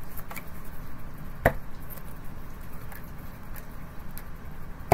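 Tarot cards being shuffled by hand and drawn from the deck: faint light ticks, with two sharp clicks, one about a second and a half in and one at the very end.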